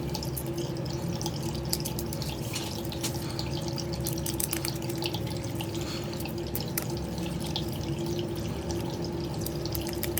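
Tiny screws being driven by hand with a small screwdriver to fix a toy car's battery holder: many light, irregular clicks and scrapes over a steady hum.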